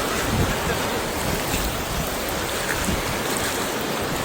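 Storm-force wind with driving rain, a steady roar of noise, with irregular gusts buffeting the microphone.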